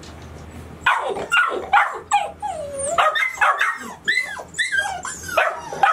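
Several golden retriever puppies, about nine weeks old, barking, yipping and howling together in overlapping high calls, starting about a second in.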